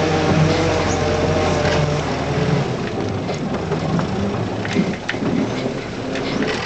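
Land Rover Series 2a short-wheelbase's 2.25-litre four-cylinder petrol engine running as it drives over a rough, rutted track, heard from inside the cab. The engine note is steady for the first couple of seconds; after that, knocks and rattles from the body take over as the vehicle lurches over the ruts.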